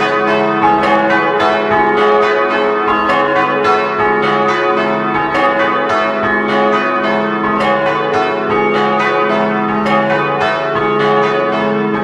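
Four church bells ringing together in a cross rising pattern, struck in quick succession with their tones ringing on underneath: three bronze bells cast in 1929 and tuned C♯, E and F♯, with a simulated smallest bell in A♭ added.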